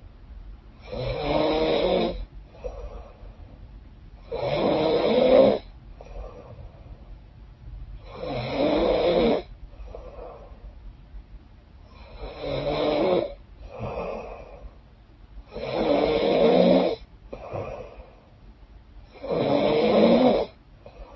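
A woman snoring in a steady rhythm through a blocked, runny nose: six loud snores, one about every three and a half seconds, each followed by a fainter breath.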